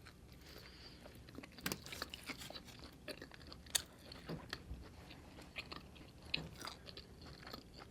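A person chewing a mouthful of taco close to the microphone: faint, irregular wet mouth clicks and soft crunches.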